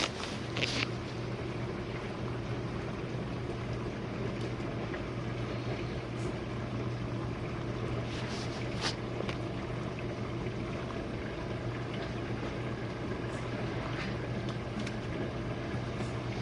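Jenn-Air dishwasher running a wash cycle: a steady motor hum with water spraying and sloshing inside the tub.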